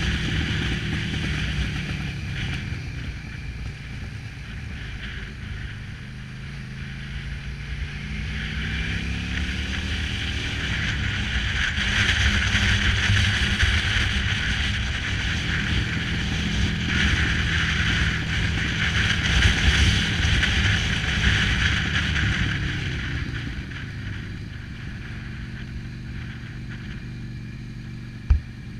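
Motorcycle engine running on the move, with wind and road rush over the microphone that swells through the middle. The engine note rises for a few seconds about a third of the way in, and there is one sharp click near the end.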